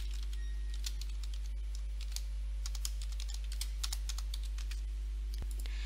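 Computer keyboard being typed on: quick, irregular key clicks over a steady low electrical hum.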